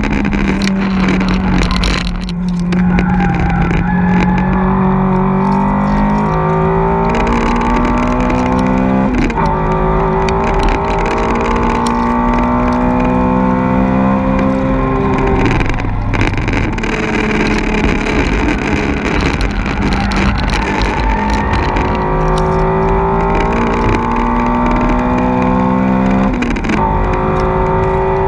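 Four-cylinder hot-hatch engine pulling hard on a race circuit, heard from inside the cabin: its note climbs slowly through each gear and jumps at gear changes several times, roughly every few seconds to a quarter-minute apart.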